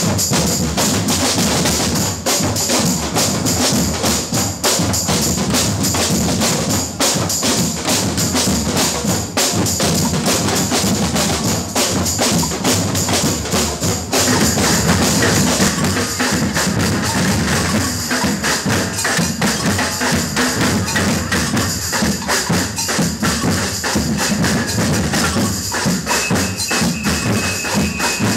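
A large batucada-style drum group playing a dense, steady groove on surdo bass drums and snare drums, with a high jingling rattle over the top. The band fills out and gets brighter about halfway through.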